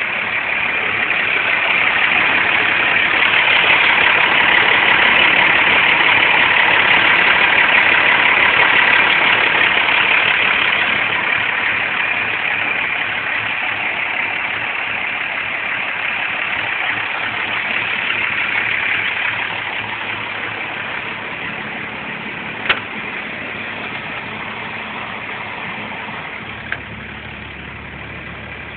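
Diesel truck engine idling steadily. The sound is louder in the first ten seconds and then slowly fades somewhat, with two short clicks near the end.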